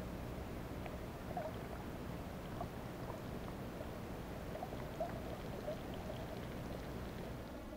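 Muffled underwater ambience picked up by a camera submerged in the sea: a steady low rumble of water with faint scattered pops and ticks.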